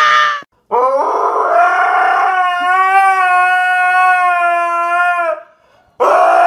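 A high squeal cuts off about half a second in. Then a dog howls one long, steady, slightly wavering note for about four and a half seconds, and starts a second, shorter howl near the end.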